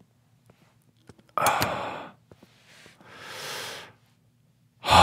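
A man sighing heavily close to the microphone: a sharp breathy sigh about a second and a half in, led by a couple of sharp clicks, then a softer, longer exhale about three seconds in. A faint low hum runs underneath.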